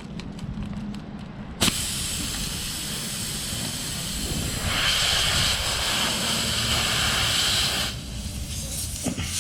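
Air hissing out of a trailer tire's puncture, opened up by the plug kit's reaming tool. The hiss starts suddenly about a second and a half in, grows louder midway, and cuts off about a second before the end.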